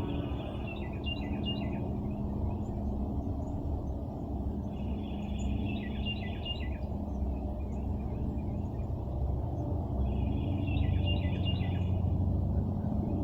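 A songbird sings the same short phrase three times, about five seconds apart. Under it runs a steady low rumble of distant traffic that swells slightly near the end.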